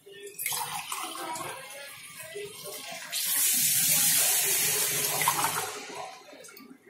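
Water poured from a steel glass into a metal pot of chicken masala gravy, splashing as it lands: measured glasses of water going in for the rice. The pour is loudest from about three seconds in until nearly six seconds.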